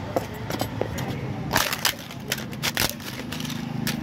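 Crisp roasted papad cracking and snapping as it is broken up by hand: a run of sharp dry cracks starting about a second and a half in, with more near the end.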